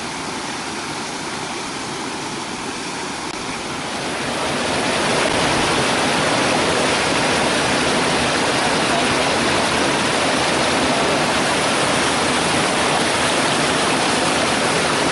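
Waterfall: a steady rush of falling water that grows louder about four seconds in, then holds.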